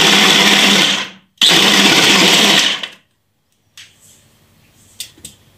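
Electric food chopper's motor running at full speed, pureeing tomatoes, in two runs of about a second and a half each with a brief pause between. It then stops, and a few light knocks follow near the end.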